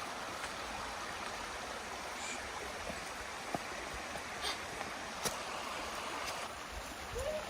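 Steady rush of flowing water from a waterfall and its stream, with a few faint clicks.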